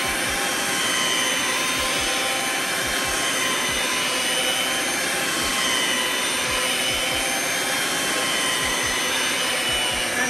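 Electric stand mixer running steadily at speed, its wire whisk beating a thick batter in a glass bowl.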